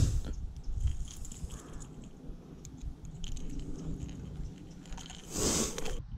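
Handling noise from a spinning reel and rod during a lure retrieve: faint scattered clicks and crackles, with a sharp knock at the start and a short rush of noise about five seconds in.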